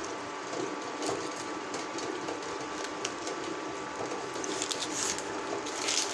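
Steady mechanical hum with a faint constant whine, typical of a kitchen stove or fan, with a few light taps of a knife against the metal kadhai as butter is cut into the simmering vegetables.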